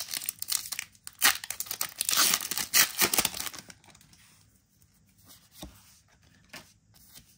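A foil Pokémon TCG booster pack wrapper is torn open and crinkled for about the first three and a half seconds. Then only a few faint ticks of handling are heard.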